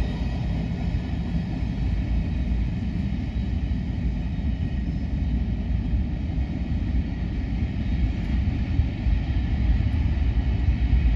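Freight train cars rolling past with a steady low rumble.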